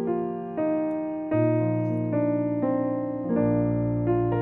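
Background piano music: a slow, gentle melody over sustained chords, the notes changing about every half second to a second.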